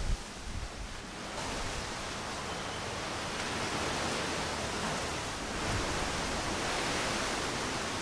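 Strong wind rushing through a leafy tree canopy, the leaves rustling in a steady hiss that swells in gusts a few times. Right at the start a few low blasts of wind hit the microphone.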